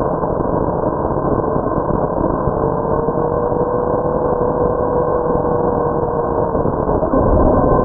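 Traxxas Slash 4x4 RC truck with a Velineon VXL brushless motor running at speed, heard through its onboard camera: steady drivetrain and tyre noise, with a faint motor whine in the middle that rises a little and fades. A louder low rumble comes in near the end.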